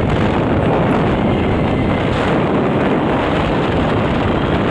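Steady rush of wind on the microphone over the rumble of a Radiator Springs Racers ride car speeding along its track.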